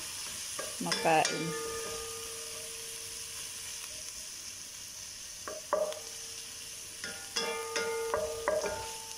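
Sliced onions sizzling in hot oil in a ceramic-coated pan, as a steady hiss. A wooden spatula stirs and scrapes them in a few strokes around the middle and near the end.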